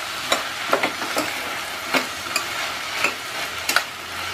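Chopped mixed vegetables sizzling in oil in a stainless steel pressure cooker, sautéing over a medium flame, while a spatula stirs them. The spatula knocks and scrapes against the pot about seven times.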